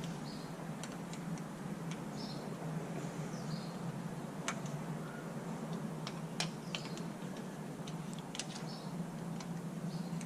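Scattered light metallic clicks and ticks as small puller screws are threaded by hand into a steering wheel hub, over a steady low hum.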